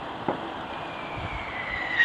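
Fireworks going off: a single dull bang about a third of a second in, over a steady rushing background. A thin whistle slides slightly down in pitch and grows louder toward the end.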